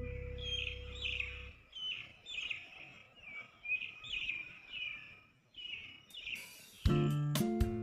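A small bird chirping repeatedly, short falling notes about twice a second. A held music chord fades out in the first second and a half, and strummed guitar music comes back in loudly near the end.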